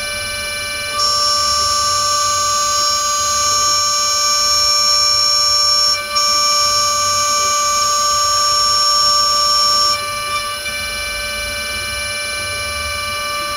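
Desktop CNC mill's high-speed spindle whining steadily as a 0.5 mm two-flute end mill cuts an aluminium mold block. A higher-pitched whine joins about a second in, breaks off briefly near six seconds, and drops out around ten seconds, leaving the lower spindle tones.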